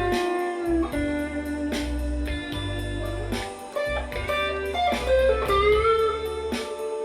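Electric guitar playing an improvised lead of held notes, several bent upward in pitch, over a blues backing track with bass and drums.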